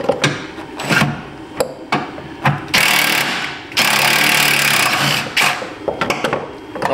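Cordless drill-driver with a Torx bit running in two bursts about a second and a second and a half long, with a few clicks and knocks of handling before and after.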